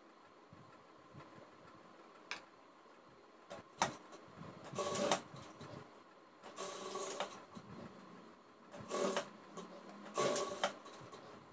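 Industrial lockstitch sewing machine stitching fabric in four short bursts, its motor humming in a steady tone while each burst lasts, with a couple of sharp clicks before the first.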